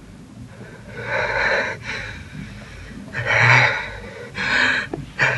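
A young man's heavy, distressed breathing: three loud, gasping breaths about a second apart, the panicked breathing of someone badly frightened.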